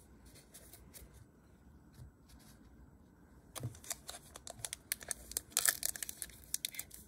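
A foil trading-card pack wrapper being torn open and crinkled by hand, starting about halfway in, as a run of quick sharp crackles.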